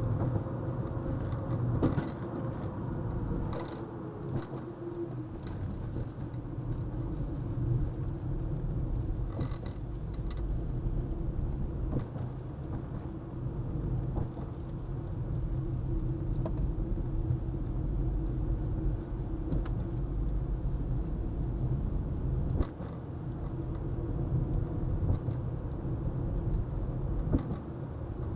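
A car driving at road speed, heard from inside the cabin: a steady low rumble of tyres and engine, with a few brief knocks over bumps in the road.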